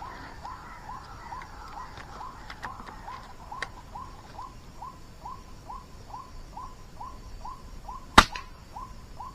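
White-breasted waterhen (ruak-ruak) calling, a short falling note repeated evenly a little over twice a second. About eight seconds in, a single sharp crack from an air-rifle shot.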